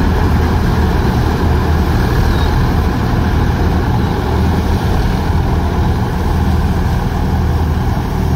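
Balkar B-525 tractor-mounted combine harvester running steadily while cutting wheat: a continuous low engine drone with the noise of the cutting and threshing machinery over it.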